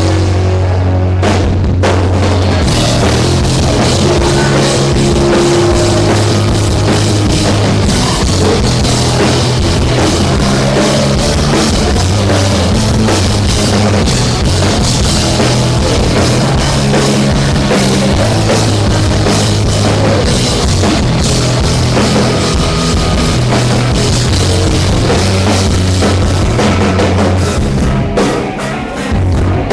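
Rock band playing live at a soundcheck, drum kit and bass notes to the fore, loud and continuous, easing briefly near the end.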